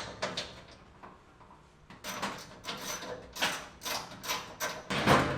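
Hard plastic parts of a Fluval 407 canister filter being handled and taken apart: a run of short knocks and scrapes, the loudest just after five seconds.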